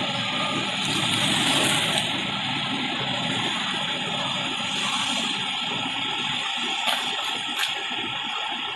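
Steady running noise of wood-processing factory machinery, with two short sharp knocks late on.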